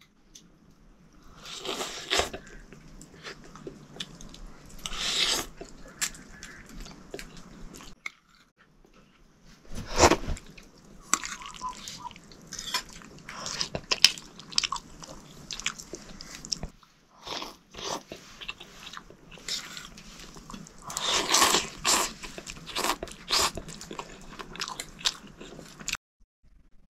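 A person eating close to the microphone: irregular chewing and crunching with many small clicks, cutting off suddenly about a second before the end.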